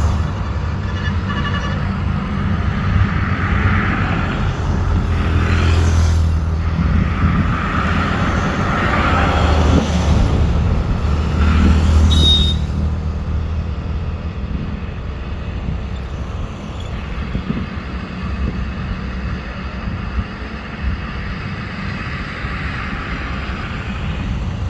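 Hyundai 210 excavator's diesel engine running steadily, its sound swelling and easing several times before settling a little lower.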